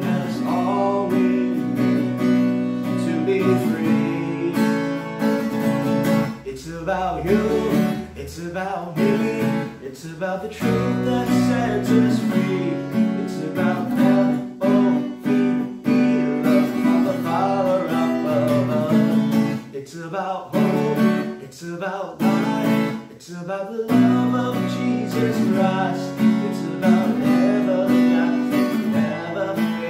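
A man singing a praise song while strumming chords on an acoustic guitar.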